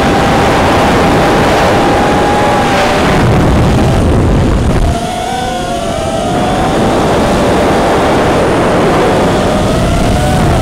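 Onboard audio of a 5-inch FPV racing quadcopter: its four T-Motor F40 III 2306 brushless motors and propellers whine in several tones that glide up and down with the throttle, over a heavy rushing noise. About five seconds in the rushing drops off sharply, then the whine climbs and falls again.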